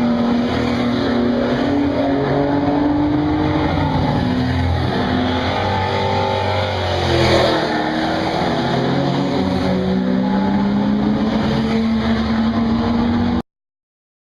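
Race car engine heard from inside the car, running hard. Its pitch sags, then climbs again about halfway through, and the sound cuts off suddenly near the end.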